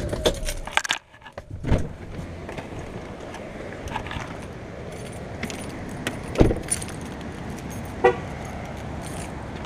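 Pickup truck getting out-of sounds: the low cab rumble cuts off about a second in, keys jangle, the driver's door clicks open, and the door slams shut about six and a half seconds in. A short horn chirp follows near the end, over a steady outdoor rush of wind and water.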